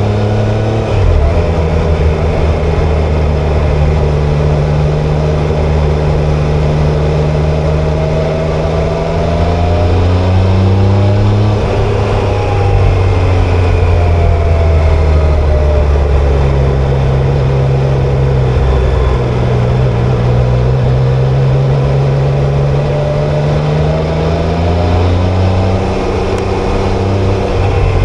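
Triumph Tiger Sport 660's 660 cc inline three-cylinder engine and exhaust under way. The revs climb gradually, then drop quickly several times as the rider changes gear or eases off.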